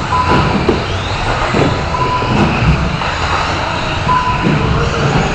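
Radio-controlled 1/10-scale electric off-road buggies racing on an indoor track, their motors and tyres making a steady mechanical noise that rumbles around a large hall. Short steady beeps sound every second or two over it.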